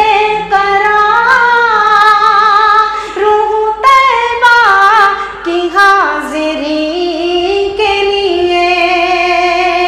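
A solo voice singing a naat unaccompanied, drawing out long held notes with vibrato and ornamented melodic runs. About four seconds in it leaps up to a higher note, then steps back down to a lower one that it holds.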